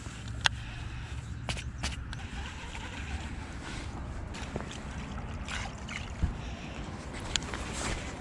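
Steady low outdoor rumble with a few short sharp clicks and ticks scattered through it.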